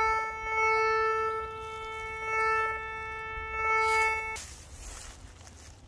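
DR. OTEK metal detector sounding a steady, buzzy target tone as its coil is swept over the ground, signalling metal under the leaf litter. The tone swells and fades a few times and cuts off suddenly about four and a half seconds in.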